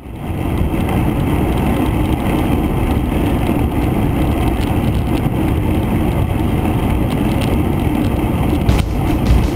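Wind rushing over the microphone and tyre-on-road rumble from a camera mounted on a moving bicycle: a steady low noise, with one knock near the end.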